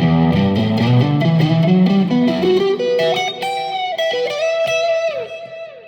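Electric guitar played through a Korg Tone Works AX3000G multi-effects pedal on its overdrive setting: a low riff, then higher held notes with a downward bend, dying away near the end.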